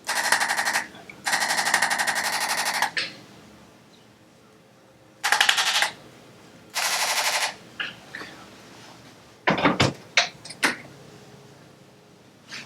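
Handheld electric percussion tool firing four bursts of rapid taps, each lasting under two seconds. A few separate sharp clicks follow about two-thirds of the way through.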